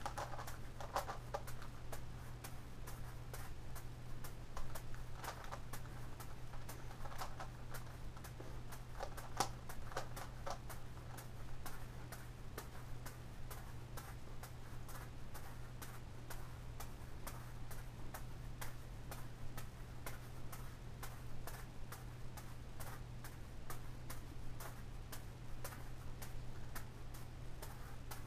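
Quick, uneven clicking of a gigaminx puzzle's plastic layers being turned, mixed with the soft slaps of juggling balls caught in the hand, over a steady low hum.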